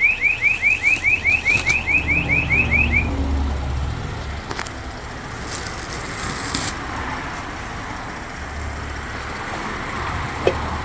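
Car alarm siren sounding a fast run of rising electronic chirps, about five a second, that stops about three seconds in, leaving a low rumble.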